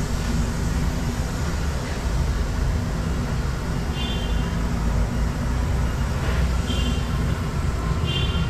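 RandBright HD-100 centerless grinder/polisher running under power, a steady low electric-motor hum. A few short, faint high chirps sound about four, six and a half and eight seconds in.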